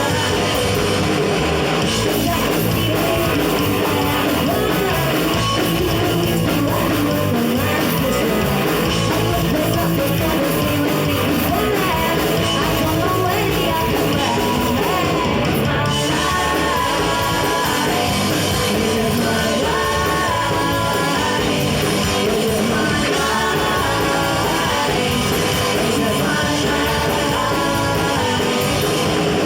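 Punk rock band playing live with electric guitars, bass and drums, a singer's voice carrying over the loud, full sound.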